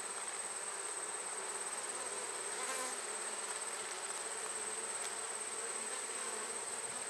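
Honey bees buzzing steadily around an open hive's brood frames, a dense even hum of many bees, with a thin steady high-pitched whine over it.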